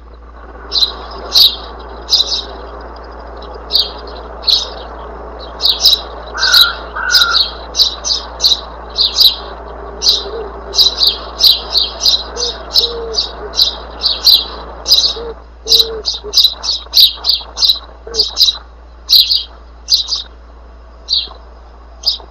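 A bird chirping over and over in short, high calls, often two or three a second, over a steady background hiss.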